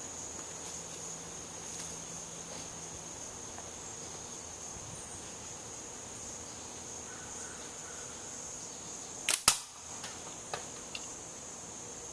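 A slingshot shot: the single-layer TheraBand Gold bands crack on release about nine seconds in, and a fifth of a second later a 3/8-inch steel ball strikes the 12-ounce can with a louder sharp hit, followed by two lighter clicks. A steady high drone of insects runs underneath.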